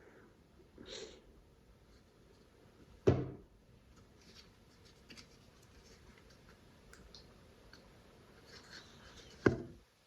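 Kitchen handling sounds while preparing oats and yogurt: two sharp knocks, about three seconds in and near the end, with light clicks and taps between.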